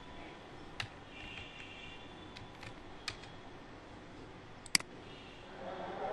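A few separate clicks of computer keys and a mouse, sparse rather than fast typing, the loudest a little before the end, over a faint steady hiss.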